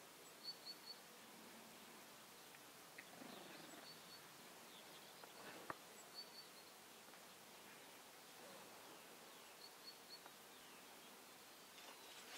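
Quiet outdoor background with a small bird chirping, three short high notes at a time, repeated several times. A single sharp click a little before the middle.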